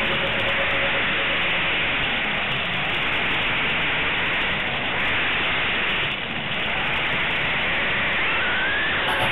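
Carrera Digital 132 slot car running on its track, heard through the onboard camera's microphone as a steady rushing noise, with a faint rising whine near the end.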